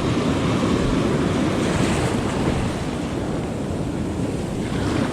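Small shore-break waves breaking and washing in one after another, with wind noise on the microphone.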